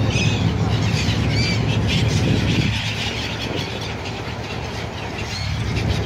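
A flock of gulls calling, many short high cries overlapping again and again, over a steady low engine hum that drops away for a few seconds in the middle.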